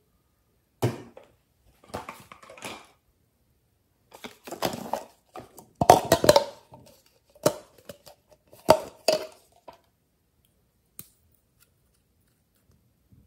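Hands handling a plastic cup: squeezing, crinkling and clicking it in a series of short bursts, the loudest about six and nine seconds in, then a single small click.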